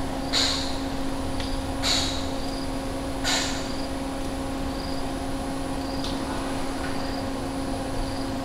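A car engine idling with a steady low hum. Short high chirps come about every second and a half during the first few seconds, then again near the end.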